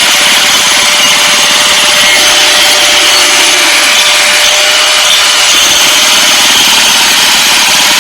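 A machine running with a loud, steady grinding hiss and a faint constant tone, unchanging throughout.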